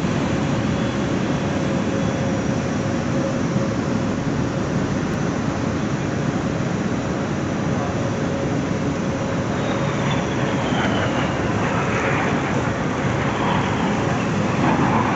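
Steady jet aircraft engine noise across an airfield, with a steady hum under it and, about ten seconds in, a whine that falls in pitch as a jet passes.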